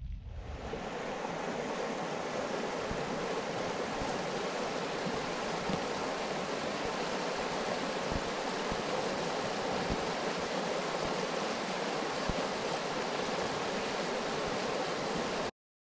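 A river rushing steadily over a gravel bed, an even hiss of flowing water that comes in just after the start and cuts off suddenly near the end.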